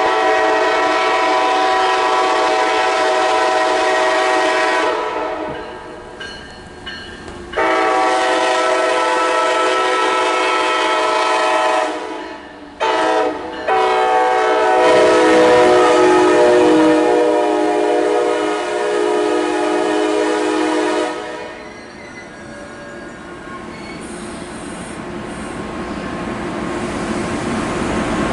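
MARC commuter train's locomotive horn sounding long, long, short, long, the last blast held longest: the warning signal for a grade crossing. The horn then stops, and the passing train's rumble grows louder near the end.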